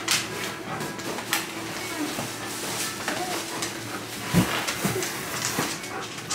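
Front door opening with a sharp click, then plastic grocery bags and a reusable shopping bag rustling and knocking as shopping is carried in, with a dull thud about four and a half seconds in and another just after.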